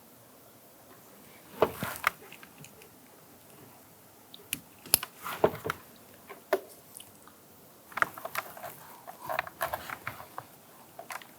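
Irregular plastic clicks, snaps and rattles as door-panel trim parts and wiring connectors are handled and fitted, in short clusters with quiet gaps between.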